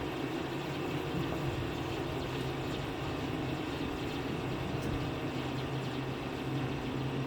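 Steady rushing of a waterfall, with a constant low hum under it.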